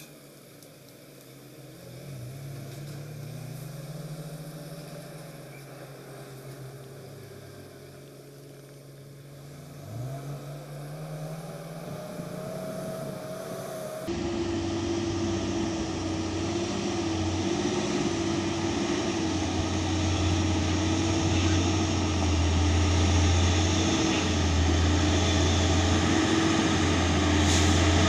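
Diesel engine of a Hino 500 dump truck running as it approaches, rising and falling in pitch about ten seconds in. About halfway through the sound jumps louder to a steady engine note that keeps growing louder as the truck comes close.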